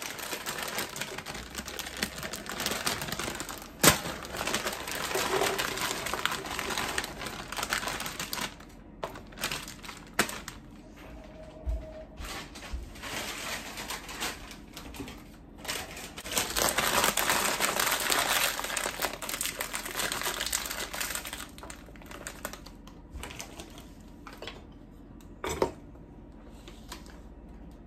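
Kitchen work at the stove: uneven stretches of crackling, crinkling noise with a few sharp clicks and knocks, louder for several seconds near the start and again past the middle.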